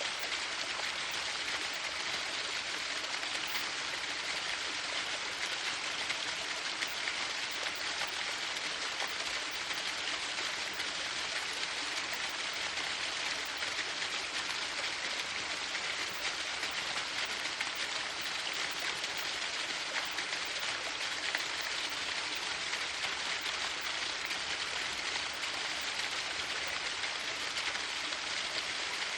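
Waterfall: the steady splashing rush of falling water, even in level throughout, mostly hiss with little low rumble.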